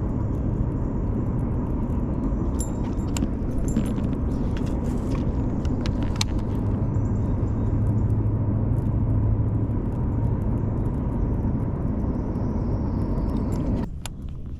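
Boat motor running steadily with a low hum, with a few light clicks in the middle; it cuts off just before the end.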